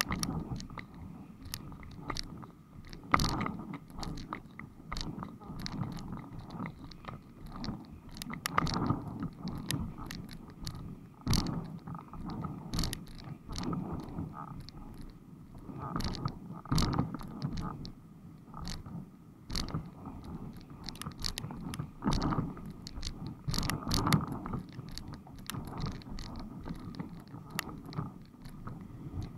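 Water chop slapping and knocking against the hull of a windsurf board as it sails, in irregular knocks and splashes a few times a second.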